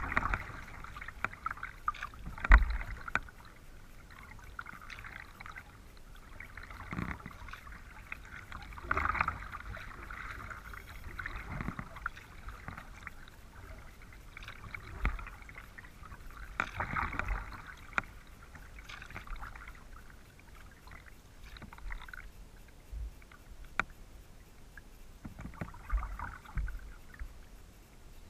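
Kayak paddle strokes in calm river water: the blades dip and splash every two or three seconds, with quieter drips and trickles between. About two and a half seconds in comes one sharp knock, louder than the rest.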